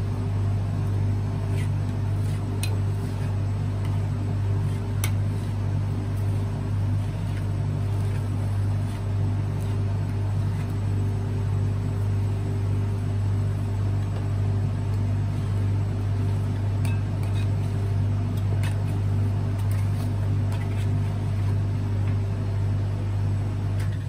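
Refrigeration compressor of a rolled-ice-cream cold plate running with a steady low hum, with a few faint ticks over it.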